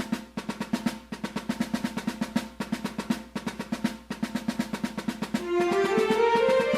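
Music: a fast, even drum beat of about five or six strikes a second, joined about five and a half seconds in by a melody.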